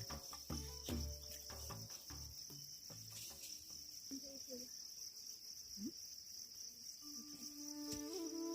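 Steady high-pitched insect chirring, with low music notes in the first few seconds and held music tones coming in near the end.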